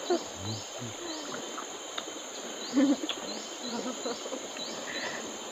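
Forest insects: a steady high drone with short rising chirps repeating about twice a second.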